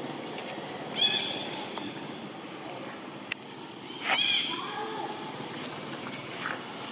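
Two short, high-pitched animal calls about three seconds apart, the second falling in pitch, over a steady low background hum, with a single sharp click between them.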